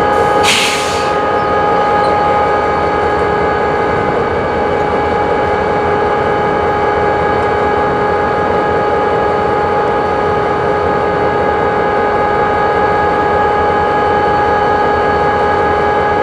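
Diesel locomotive running steadily nearby, with a constant mechanical whine over the engine's rumble. A short hiss cuts in about half a second in.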